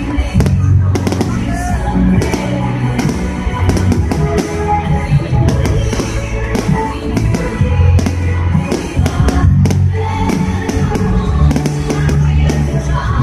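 Music with a heavy bass line playing loudly, while fireworks go off throughout in many short, sharp bangs and crackles.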